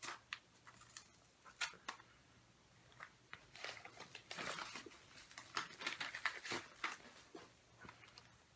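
Hands working open taped-up wrapping paper: crinkling and rustling with sharp little tearing and clicking sounds, busiest in the middle.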